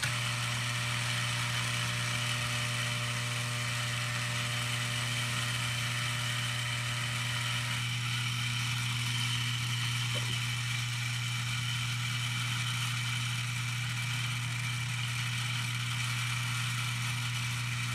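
Lionel 3656 operating cattle corral running: its electric vibrator mechanism gives off a steady, even buzz as it shakes the platform to walk the toy cattle along.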